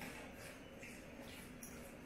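Faint soft squishing and scraping of a fork stirring chunky guacamole in a ceramic bowl, over a low steady hum.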